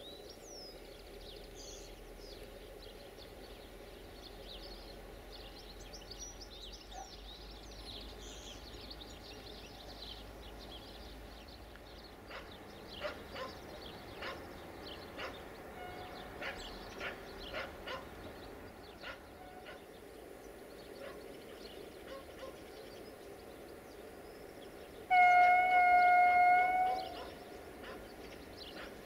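Locomotive horn sounding one steady blast of about two seconds, near the end, over faint birdsong.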